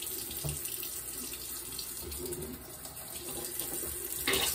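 Water running from a bathroom sink tap, a steady rush into the basin, with a louder splashy burst near the end.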